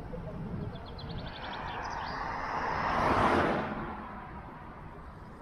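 A car drives past, its noise swelling to a peak about three seconds in and then fading away.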